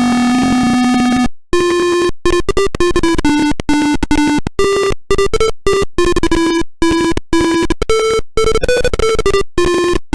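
Buzzer driven by an Arduino Uno playing a song as a melody of buzzy electronic beeps, one note at a time with short gaps between notes. It opens on one long low note, then moves through quicker notes that step up and down in pitch.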